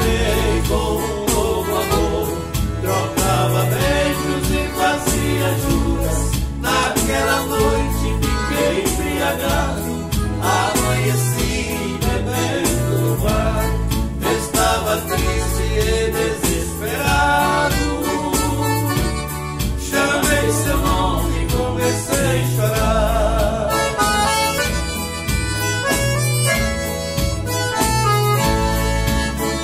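Instrumental break of a Brazilian country song: a piano accordion plays the melody over a Korg arranger keyboard's bass-and-rhythm accompaniment and strummed acoustic guitar, with a steady beat.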